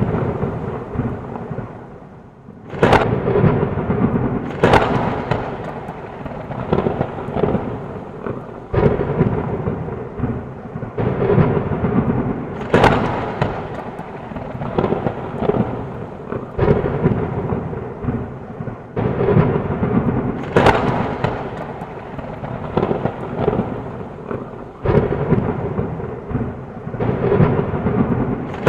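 Thunderstorm with heavy rain: a steady wash of rain under repeated thunder. A new crack of thunder breaks every few seconds and rolls off into rumbling.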